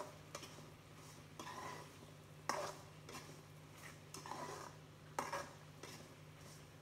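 Wooden spatula stirring and scraping sliced onions and tomatoes around a wok, a stroke about every second, over a steady low hum.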